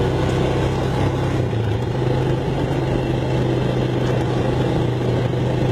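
Engine of a four-wheel ATV running at a steady speed while riding, heard from on board the machine.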